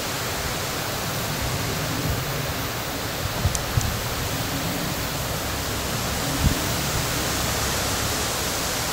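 Steady rushing wind noise on the microphone, with a low rumble beneath it and a few soft low thumps.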